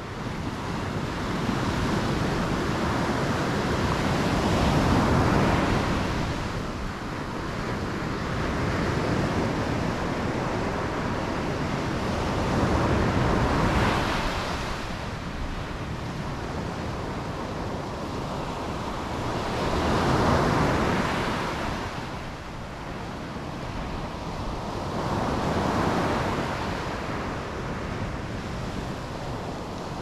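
Small sea waves breaking on a sandy beach and washing up the shore. The surf swells and falls back four times, roughly every six to seven seconds.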